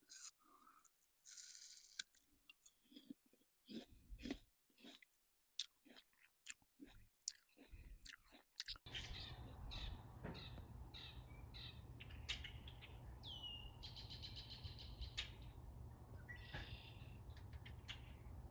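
For the first half, close, quiet chewing and biting of soft baked bread, with small wet clicks and crunches. About halfway through, this gives way to outdoor ambience: a steady low hiss with songbirds chirping and calling, among them a few short falling whistles.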